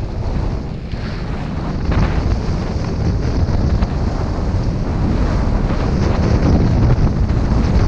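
Loud, steady wind buffeting on a body-worn camera's microphone while riding down a snowy ski slope, a dense rumble heaviest in the low end with no distinct events.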